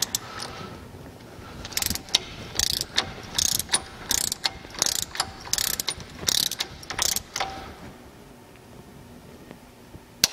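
Hand torque wrench ratcheting as it tightens a wheel hub's spindle nut to 170 foot-pounds: a run of short ratchet clicks, several a second, that stops about three quarters of the way through.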